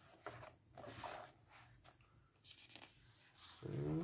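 Photobook pages being turned by hand: several soft paper swishes and rustles. A short murmur of voice near the end is the loudest sound.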